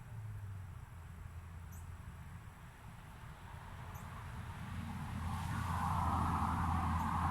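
A few short, faint, high chirps from small birds over a low outdoor rumble; from about five seconds in, the sound of a passing road vehicle grows steadily louder as it approaches.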